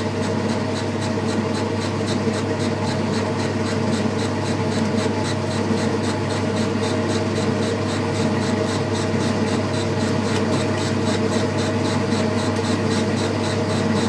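Boxford metal lathe running, a steel bar turning in the four-jaw chuck with a parting-off tool cutting a groove. A steady hum with a faint scraping of the cut and a regular tick about four or five times a second.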